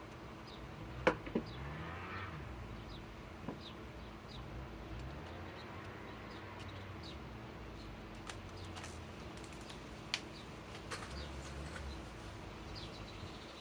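A small bird chirping over and over, short falling chirps about once or twice a second, with a few sharp clicks and knocks as a tool and screw are handled; the loudest click comes about a second in.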